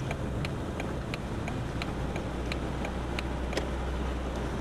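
Jeep Wrangler's turn signal ticking about three times a second through a turn, stopping about three and a half seconds in as the signal cancels. Under it runs a steady low engine and road rumble that firms up as the Jeep pulls away.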